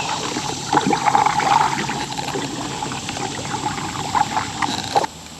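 River water splashing and trickling close by, a busy crackling wash that cuts off suddenly near the end.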